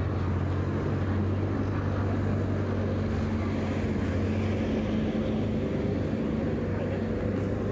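Road traffic with a vehicle engine running steadily close by, giving a continuous low hum over general road noise.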